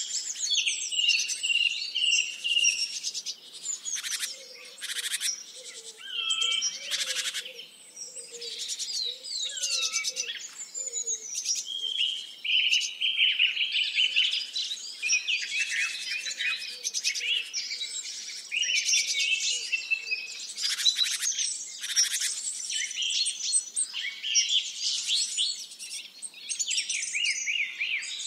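Several songbirds singing together in a dense chorus of overlapping chirps, trills and quick whistled glides.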